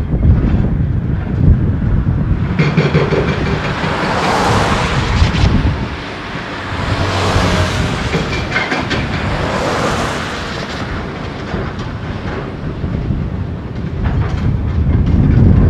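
Road traffic passing on the bridge close by: vehicles swell up and fade away about three times over a steady low rumble.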